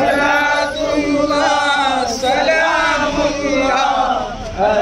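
Male voices chanting a slow, drawn-out melody with long held notes, with a brief break between phrases near the end.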